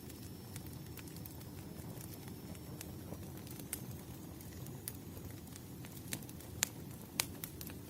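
Wood fire crackling: a low steady rumble with irregular sharp pops and snaps, two louder pops near the end.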